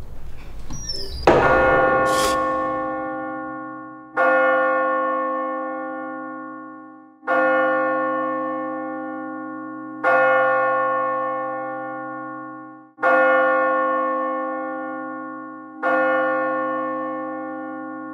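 A deep bell tolling slowly, struck six times about three seconds apart, each stroke ringing out and fading before the next. A short rushing noise comes just before the first stroke.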